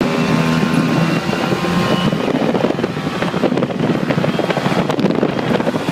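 Off-road vehicle engine running, with a steady pitched drone at first that turns rough and rattly, and wind buffeting the microphone.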